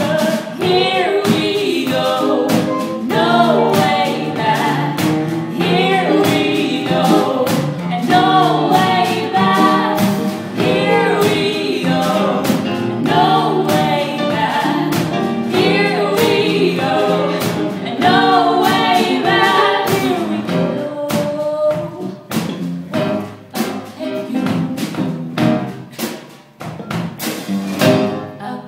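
A woman singing live with a small band of electric guitar and drum kit playing steadily behind her. About two-thirds of the way through, the music thins out and becomes more broken, with a loud drum hit near the end.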